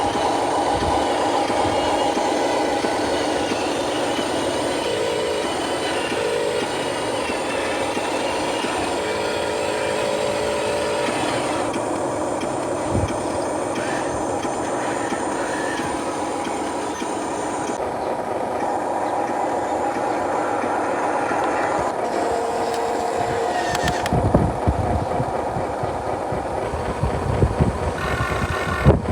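Radio-controlled truck running: a steady motor and gear whir that shifts in pitch with the throttle, changing abruptly several times, with some knocks and clatter near the end.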